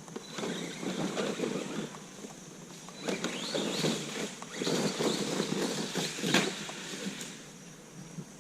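Arrma Granite BLX brushless RC truck running over the lawn in two spurts, its motor and tyres churning unevenly, the second spurt about three seconds in and longer.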